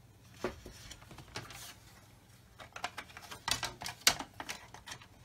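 Injection-moulded plastic model-kit parts (an Airfix 1/24 Hellcat cockpit tub, fuselage half and sprue frame) clicking and knocking together as they are handled and test-fitted. A few single taps come first, then a quick flurry of clicks from about two and a half to four and a half seconds in.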